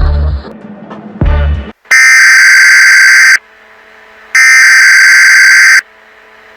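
Two deep, low thuds in the first two seconds. Then come two loud, harsh screeching data bursts of an Emergency Alert System header, each about a second and a half long with a second's pause between.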